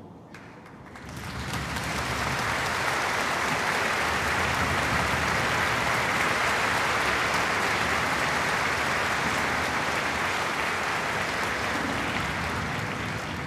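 Audience applauding, the clapping building up over the first two seconds and then holding steady.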